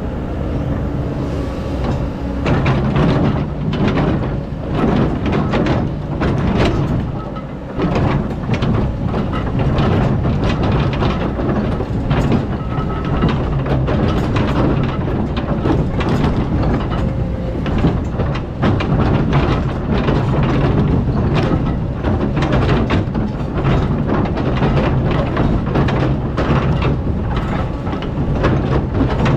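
Excavator engine running steadily while digging sand, with frequent clanks and rattles over the hum.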